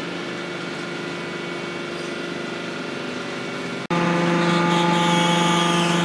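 Hydraulic waste-paper baler running, a steady machine hum from its hydraulic pump and motor. The sound breaks off for an instant about four seconds in, then comes back louder and closer, with a faint higher whine.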